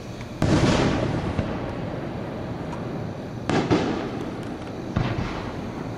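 Consumer 1.3G aerial fireworks bursting overhead: a loud boom about half a second in, a quick double boom around three and a half seconds, and a third near the end. Each boom trails off over about a second.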